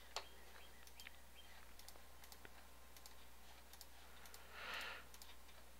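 Computer mouse clicking through an installer: one sharp click just after the start and fainter ticks after it, over a faint low hum. A brief soft hiss about three-quarters through.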